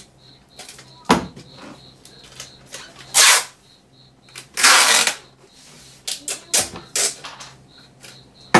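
Packing tape being pulled off the roll and pressed onto cardboard boxes: several rasping pulls of tape, one longer than the rest, with short clicks between them and a sharp click near the end.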